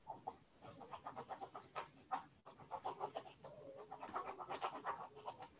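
Faint, irregular scratchy rustling and small clicks picked up by an open microphone on a video call, with no one speaking.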